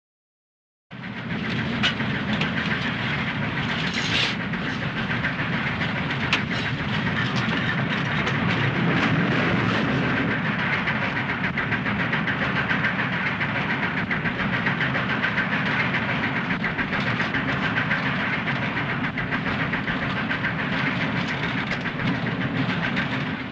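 Railway train rolling steadily along the track, its wheels clicking over the rails. It begins about a second in.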